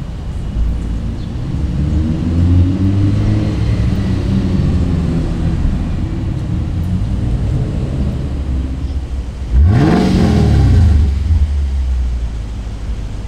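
Sports car engines in street traffic: a yellow Audi R8's V10 pulling away in the first few seconds, its pitch rising and then holding. About ten seconds in, a car engine revs sharply up and falls back, the loudest moment.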